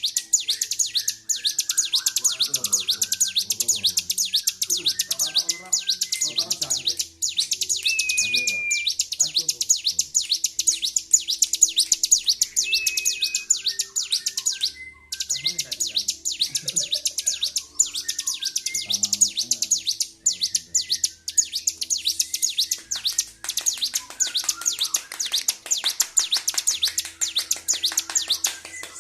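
A ciblek, a small Indonesian prinia, sings an unbroken stream of rapid, high, chattering notes. There is one short pause a little before halfway. This is the non-stop song of a bird in full, excited voice.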